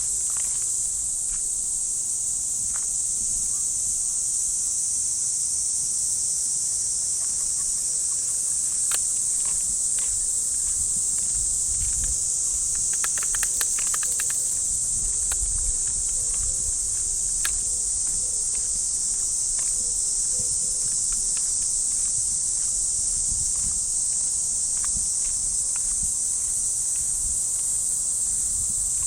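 A dense chorus of cicadas makes a steady, high-pitched buzz. Light footsteps on a path tick through it now and then, with a brief flurry of them about halfway through.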